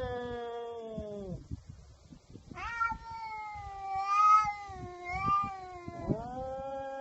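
Cats caterwauling in a fight standoff: long, drawn-out yowls with wavering pitch. One trails off and drops in pitch, another swells twice in loudness, and a third begins with a rising pitch near the end.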